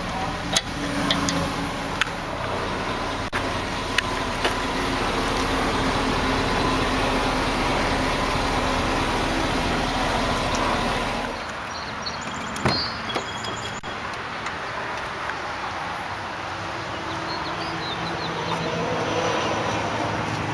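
A vehicle engine idling steadily, a low hum under outdoor noise. About 11 seconds in the sound drops abruptly to a quieter level, with a knock shortly after.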